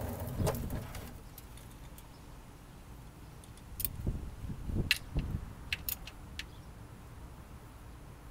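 Ratchet wrench and socket clicking and clinking on the oil drain plug as it is threaded back into the oil pan, a handful of sharp metallic clicks in the middle with some dull knocks of handling.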